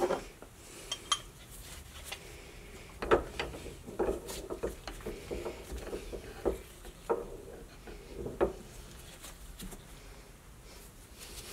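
A flat metal bar being set and shifted in the jaws of a bench vise: a string of metal-on-metal clinks and knocks with a short ring, the loudest about three seconds in and a cluster around four to five seconds.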